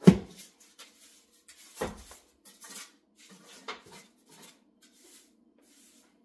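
Kitchen things being handled: a series of sharp knocks and clunks, the first the loudest, with a few more over the next four seconds and then only faint ticks.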